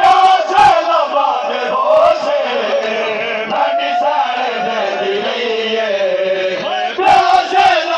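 Men's voices chanting a noha, a Muharram mourning lament, in a drawn-out melodic recitation amplified over a loudspeaker above a crowd. A few sharp hits stand out near the start and again near the end.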